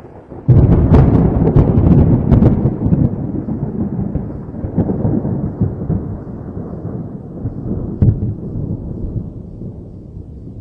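A thunderclap: a sudden loud crack about half a second in, with sharp crackles over the next two seconds, then a low rumble that slowly dies away, broken by one more crack later on.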